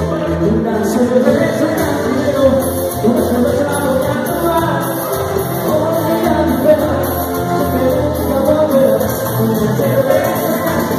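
Live band music with vocals sung into microphones, playing continuously.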